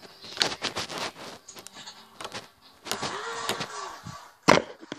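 Fingers poking and squeezing a glossy fluffy slime, giving quick wet clicks and pops. Later a short tone rises and falls, then a single loud knock sounds as the device is handled.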